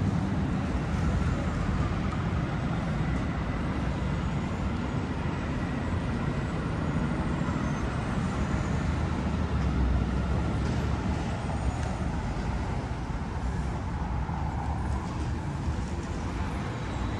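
Steady city street traffic noise: cars and trucks running and passing along the roadway, with a continuous low rumble.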